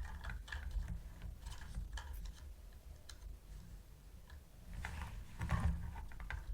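Light, irregular clicking and rustling of small plastic toy parts and packaging being handled, with a louder cluster of clicks and rustling near the end.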